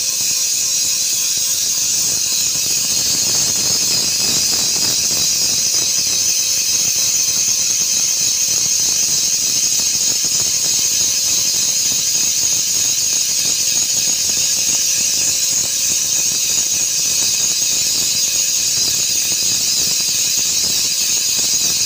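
Jig grinder's high-speed spindle grinding inside a bore in a die plate, a steady high-pitched whine and hiss. The hole is being reground to correct its ovality and centre distance.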